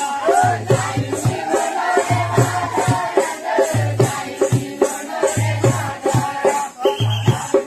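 Adivasi dance song: a sung melody over a quick, even shaker rhythm and a deep bass beat that comes back about every second and a half.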